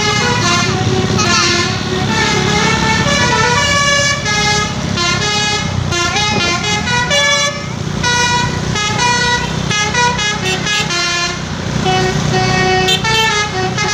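Bus basuri horn, a multi-tone musical air horn, playing a melody of short stepped notes one after another over a low traffic rumble.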